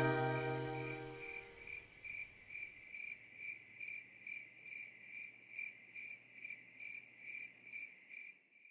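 The final chord of the music dies away over the first second or so, leaving a single cricket chirping in an even rhythm, about two to three chirps a second, until just before the end.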